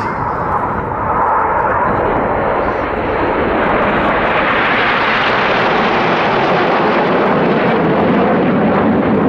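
Jet noise from the Red Arrows' formation of BAE Hawk T1 jets flying overhead. It is a steady rushing noise that swells about a second in and then stays loud.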